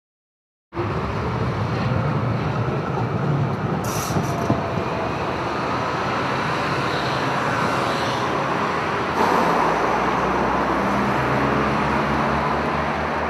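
City street traffic: a tram running along its rails and cars going by. The sound starts abruptly about a second in and stays steady throughout, getting a little louder around nine seconds.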